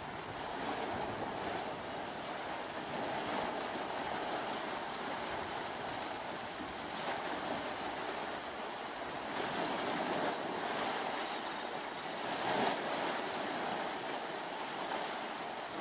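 Steady rushing, hissing noise of a steaming, churning hot spring pool, swelling briefly about three quarters of the way through.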